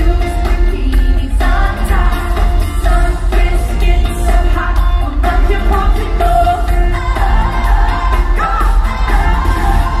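Pop music with a woman singing the lead vocal over a loud backing band and heavy, steady bass.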